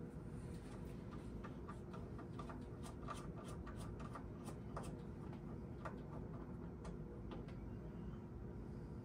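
Light, irregular clicks and ticks of a Torx screwdriver working the screws that hold a boiler gas valve, thickest in the middle and thinning out toward the end, over a faint steady hum.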